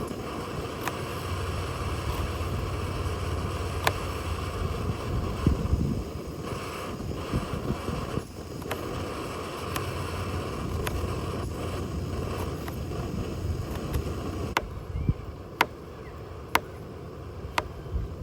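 Kayak on the water: a steady wash of water and low wind rumble, with sharp knocks now and then, several of them about a second apart near the end.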